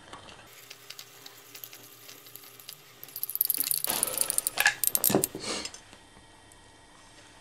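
Metal teaspoon stirring a vinegar-and-salt etching solution in a ceramic bowl, clinking rapidly against the bowl for about a second just before the middle, then a few separate clinks and knocks as the spoon is lifted out and laid down.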